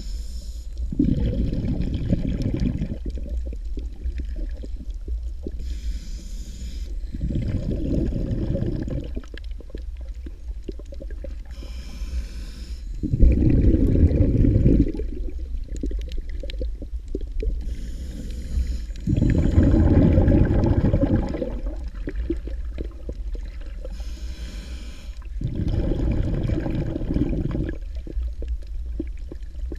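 A snorkeler breathing through a snorkel, heard through an underwater camera. Each breath is a short hiss followed by a louder low rush of about two seconds. The breaths come about every six seconds, five in all, over a steady low underwater rumble.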